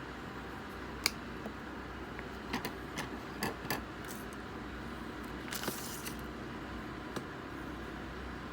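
Trading cards and card packs being handled: a scatter of light clicks and taps, then a short scraping rustle about five and a half seconds in, over a steady low hum.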